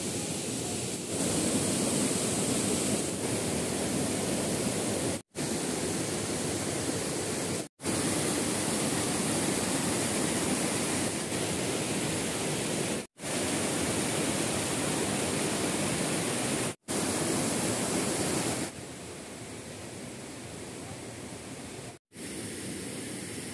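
A shallow, rocky river rushing over stones: a steady rush of water. It cuts out abruptly several times and is quieter for the last few seconds.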